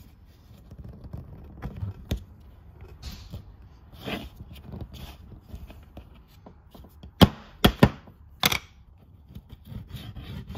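Plastic French-fry cutter mold being pressed and worked through soft modeling dough on a tabletop: soft scraping and rubbing, with a cluster of four sharp plastic knocks past the middle.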